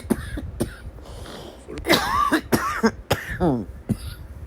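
A woman coughing repeatedly in short, harsh bursts, with strained pitched gasps in between: a laughing fit that has set off an asthma attack, with phlegm in her throat.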